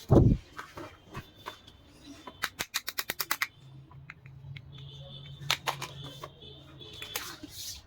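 Small plastic toy dollhouse pieces being handled: a low thump right at the start, a quick run of about ten clicks a little over two seconds in, then scattered taps and light rustling.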